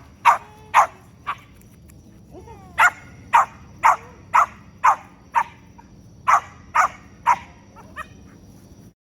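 Havanese dog barking excitedly in quick runs of sharp, high yaps, about two a second, with a brief whine between runs.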